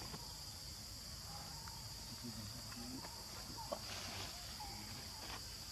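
Steady high drone of insects such as crickets or cicadas, with a few faint short chirping calls and a single sharp click near the middle.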